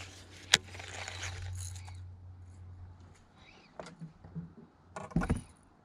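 Handling noise from fishing tackle. A sharp click comes about half a second in, with a hiss for the first two seconds, then scattered light clicks and a short cluster of thumps about five seconds in.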